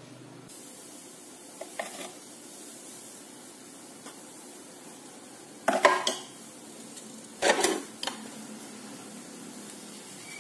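Short metal clinks and knocks from handling espresso gear, a metal portafilter and utensils. Most are light, with two louder clatters a little past the middle, a second or so apart.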